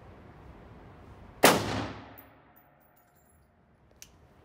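A single rifle shot about a second and a half in, echoing and fading over about a second in the concrete range. A short, sharp tick follows near the end.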